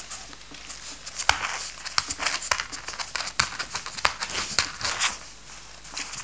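Coton de Tulear puppies pawing and scrabbling at the edge of a furniture surface: a run of sharp clicks and scratches starting about a second in and dying down near the end.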